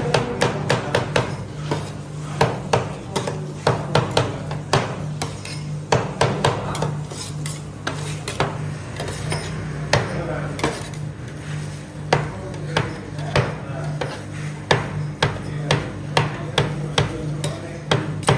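Two metal spatulas chopping and scraping banana pieces on the steel cold plate of a rolled ice cream machine: rapid, irregular metallic clacks and scrapes over a steady low hum.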